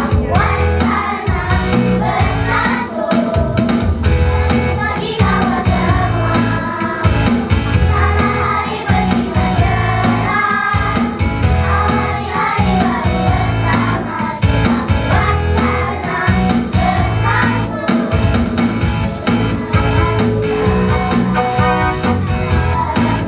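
A children's choir singing a song together over an instrumental accompaniment with a steady beat.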